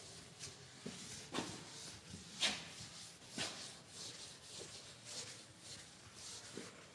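Chalkboard eraser wiping across a chalkboard: a series of short swishing strokes, roughly one a second, the loudest about two and a half seconds in.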